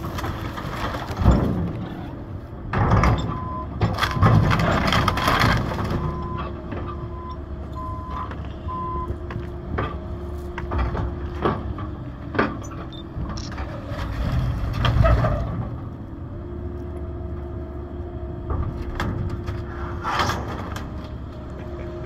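Excavator engine running steadily while the machine works, with repeated knocks, cracks and crunching of wood and metal being moved, and a short series of beeps a few seconds in.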